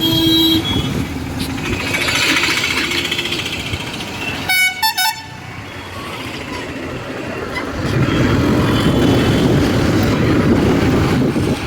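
Road traffic with vehicle horns: one horn sounds at the start, and a quick series of short honks comes about four and a half seconds in, over steady traffic noise.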